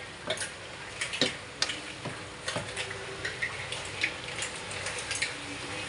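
A spatula clicking and scraping against a pan as stir-fried vegetables are turned, in irregular knocks over a light sizzle.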